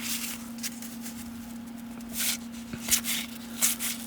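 Baseball cards being handled and flipped through by hand: a series of short, irregular rustles and slides of card stock.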